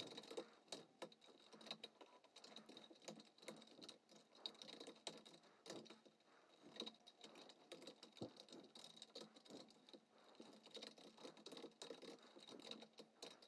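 Faint typing on a computer keyboard: quick, irregular key clicks in short runs with brief pauses.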